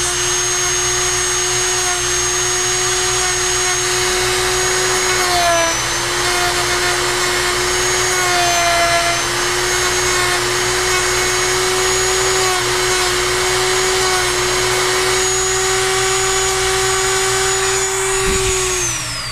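High-speed handheld rotary tool running steadily, sanding glued-in toothpicks flush in stripped hinge screw holes in wood. Its pitch dips briefly twice as it bears down, and it winds down near the end.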